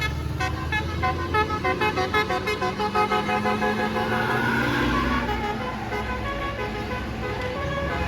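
A tour bus's Basuri multi-tone air horn playing a quick 'telolet' melody of short stepped notes, about four a second. About four seconds in the tune gives way to the bus's engine and road noise as it passes, with a slowly falling pitch.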